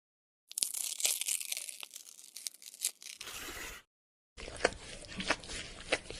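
Crinkling, tearing and crunching noises in short bursts with sudden cuts to silence between them, the last stretch made of evenly spaced crisp clicks.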